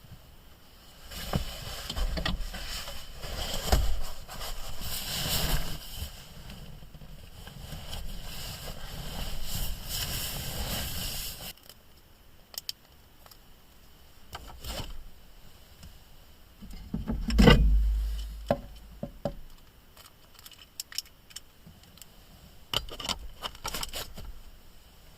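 Handling noises: about eleven seconds of rustling and scraping that stops suddenly. Then come scattered clicks and knocks, with one heavier thump about seventeen seconds in.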